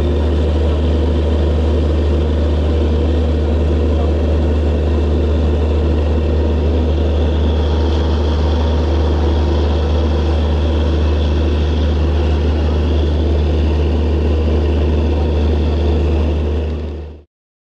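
Diesel locomotive engine running with a steady low drone and a faint regular throb. It cuts off abruptly near the end.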